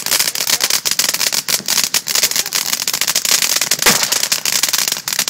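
A dense run of firecrackers going off in rapid, continuous crackling, many sharp pops a second without a pause.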